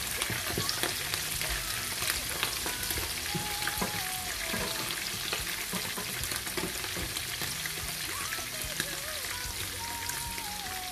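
Chicken pieces sizzling in hot oil in a nonstick frying pan, with the clicks and scrapes of a wooden spatula turning them.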